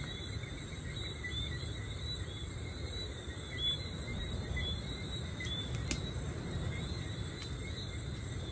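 Outdoor ambience of a steady low rumble, with a chorus of short, repeated high chirps from small night creatures running throughout, and one sharp click about six seconds in.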